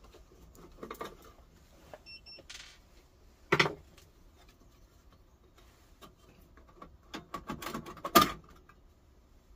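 Hands handling the metal chassis and leads of a vintage CRT television: scattered clicks and knocks, a sharp knock about three and a half seconds in, and a run of knocks near the end, the loudest about eight seconds in.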